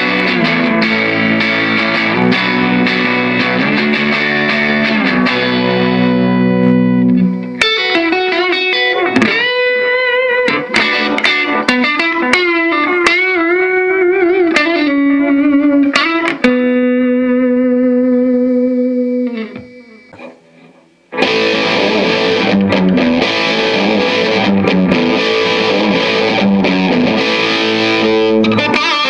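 Electric guitar played through a Bogner Alchemist 2x12 tube combo amp with a distorted tone. It starts with ringing chords, moves to single-note lead lines with bends and vibrato, and ends that part on a long held note that fades out. Heavy distorted playing starts about three quarters of the way in, slightly clipped in the camcorder's audio.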